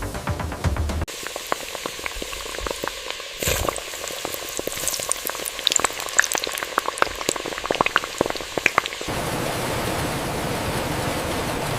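Oil crackling and sizzling with many sharp pops, as in deep frying. About nine seconds in it cuts to a steady rushing noise.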